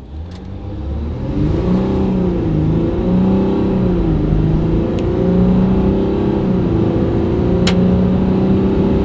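Ram 1500 EcoDiesel's 3.0-litre V6 turbodiesel accelerating hard from a standstill, heard from inside the cab. It grows louder over the first second or so, and its note steps down and back up twice as the automatic transmission shifts up.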